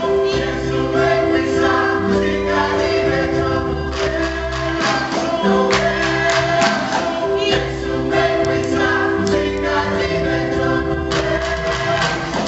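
A choir sings with instrumental accompaniment and drum strikes, in long held notes over a steady beat.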